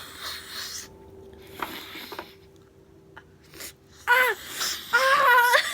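Women wheezing and gasping through the nose after sniffing pepper. About four and five seconds in come two loud, high-pitched cries of discomfort.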